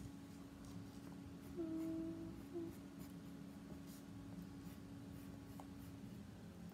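Pencil scratching on paper in light sketching strokes. A short, steady low tone sounds about one and a half seconds in and comes back briefly a moment later.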